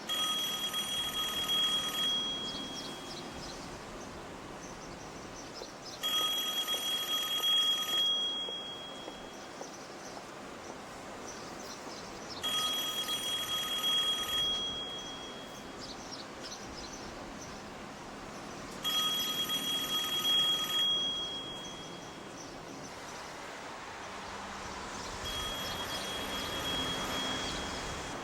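A telephone ringing five times with an electronic tone, each ring about two seconds long with about four seconds of pause between; the last ring is fainter.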